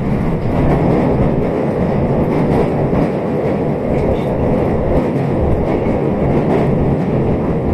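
JR West Special Rapid Service train running, a steady rumble of wheels on the rails heard from inside the passenger car.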